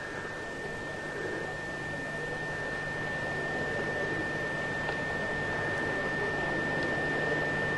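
Steady hiss with a constant high-pitched whine, slowly getting a little louder; no distinct event stands out.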